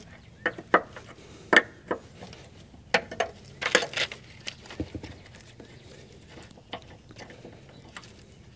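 Irregular metal clicks and clinks of a wrench working the air-line fitting loose from the top of a semi truck's rubber suspension air bag. The loudest clatter comes in a cluster about four seconds in, with fainter taps after.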